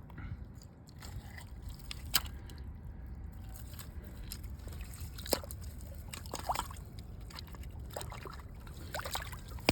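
Shallow water sloshing and trickling, with a few sharp clicks spread through it.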